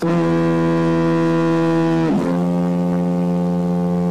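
Diaphone foghorn of East Brother Island Light sounding its two-tone signal. A loud, low horn note is held for about two seconds, then dips briefly into a second, slightly lower note, which stops abruptly about four seconds in.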